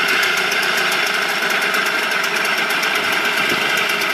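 Tohatsu 4 hp two-stroke outboard motor running steadily, its lower unit in a barrel of water.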